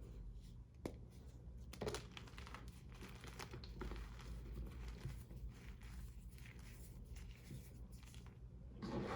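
Reformed gym chalk, not fully dried, being crushed: a continuous crunching and crumbling with sharp cracks about one and two seconds in, and a louder crunch near the end.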